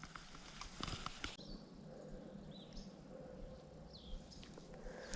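Faint outdoor ambience with a few short, high bird chirps, and some light clicks and taps in the first second or so.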